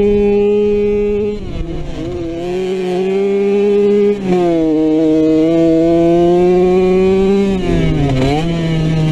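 Dirt bike engine running hard under the rider, with a steady high engine note. It drops about a second and a half in and climbs back, dips briefly near four seconds as if at a gear change, holds steady, then falls and wavers before rising again near the end.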